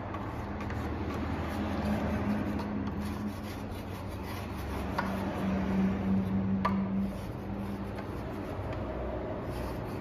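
Hands rubbing and wiping dust off the metal frame and housing of a wall-mounted exhaust fan, with two small sharp clicks about five seconds in and again a second and a half later. A low hum comes and goes under the rubbing.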